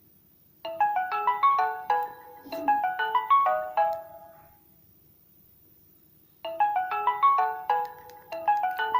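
Samsung phone ringtone: a short melody of quick, fading notes plays, stops for about two seconds, then starts over.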